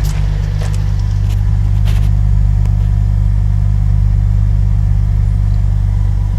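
2007 Holden VE Commodore's 3.6-litre Alloytec V6 idling steadily, with a few faint clicks in the first couple of seconds.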